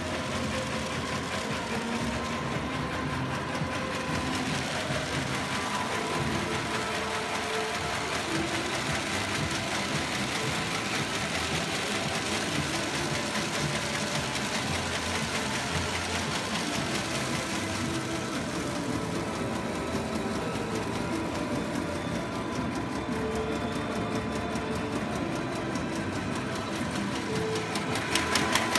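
LSD-400B automatic high-speed paper bag making machine running: a steady mechanical clatter from its rollers, cutting and folding mechanisms over a steady whine. Near the end a rapid, even ticking comes up louder.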